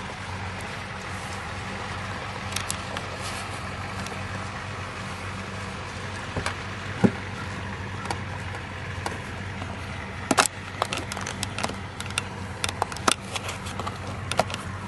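Vehicle engine idling with a steady low hum. From about ten seconds in, a run of sharp clicks and knocks.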